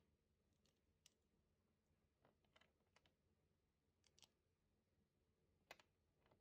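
Faint, scattered clicks of plastic Lego bricks being picked up and pressed together, about nine over several seconds, the clearest one near the end.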